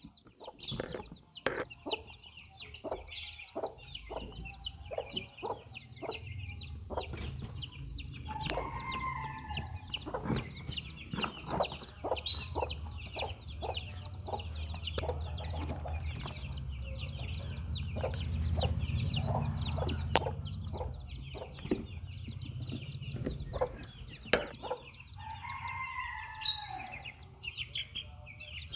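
A brood of baby chicks peeping without pause, each peep a short high falling chirp. A hen calls in lower notes twice, about nine seconds in and again near the end, with many sharp ticks and a low rumble through the middle.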